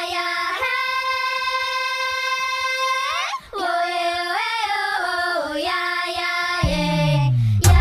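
A high-pitched, child-like voice singing without accompaniment: one long held note for about three seconds, then a short wavering melodic phrase. Near the end comes a falling slide in pitch.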